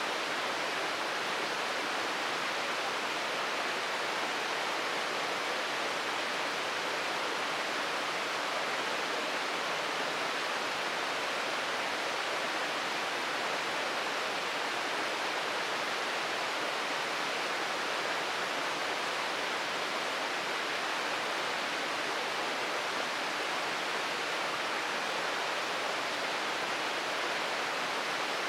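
Shirogane Falls waterfall: water pouring and splashing as a steady, even rush with no change in level.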